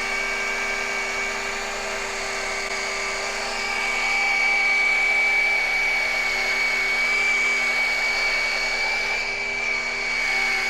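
Electric rotary polisher running steadily on glass with a high whine, polishing a scratched pane with cerium oxide. It gets slightly louder about four seconds in.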